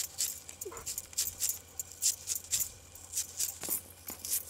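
Red onion being sliced against an upright blade fixed to a wooden plank: a run of short, crisp cutting clicks, irregular at about three a second.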